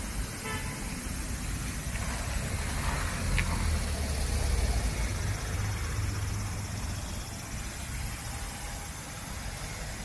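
Low rumble of road traffic with a steady hiss over it, swelling for a few seconds in the middle as a vehicle goes by.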